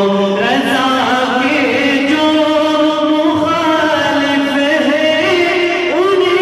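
A male voice singing an Urdu naat (devotional kalam), drawing out long held notes that glide from one pitch to the next.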